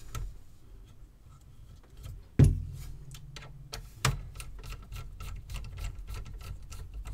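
Screwdriver driving a screw into the cassette deck's metal motor bracket: a knock about two and a half seconds in, then a run of quick light ticks as the screw is turned, with a second knock about four seconds in.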